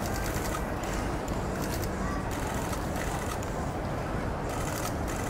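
Outdoor crowd ambience: a steady murmur and rumble, with several short bursts of rapid clicking.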